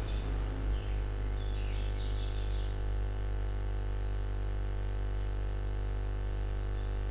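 A steady low hum with many overtones, unchanging throughout, with a few faint high chirps about two seconds in.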